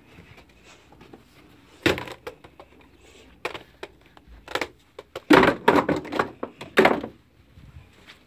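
Rental quad roller skates knocking and thudding as they are handled and bumped together: a single sharp knock about two seconds in, then a quick run of louder knocks between about four and seven seconds.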